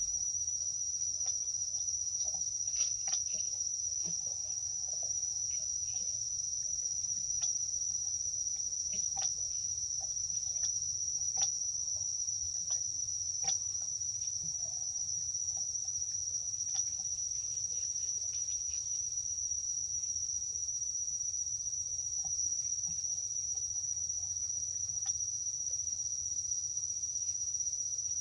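Insects calling in a continuous, steady high-pitched drone, with scattered faint clicks and rustles over it.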